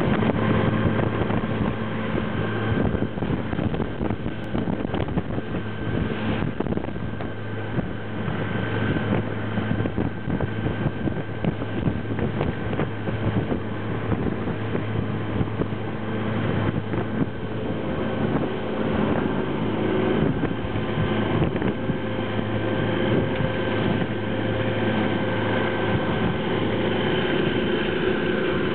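Suzuki 140 hp outboard motor running at speed with a steady drone, while the boat's hull bottom slaps repeatedly and irregularly against the waves, which the uploader puts down to the boat's speed.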